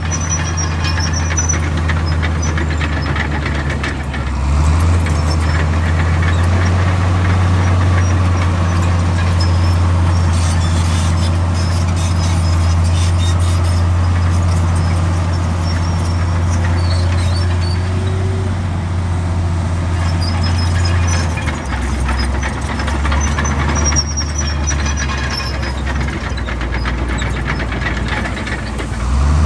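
Heavy diesel engine of an earthmoving machine, most likely the Komatsu D65 bulldozer, working under load with a steady low drone. The engine note picks up a few seconds in, drops back about two-thirds of the way through and rises again near the end, and high-pitched squeals come through a few times.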